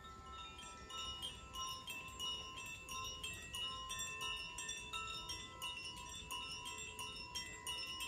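Koshi chimes, bamboo-tube chimes with tuned metal rods inside, rocked by hand so their inner clappers strike again and again. The notes ring and overlap in a continuous, tinkling shimmer, several strikes a second.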